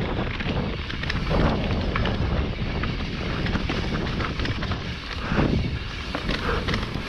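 Mountain bike descending a rough dirt trail at speed: tyres on loose dirt and the bike knocking and rattling over bumps, under steady wind buffeting on the microphone.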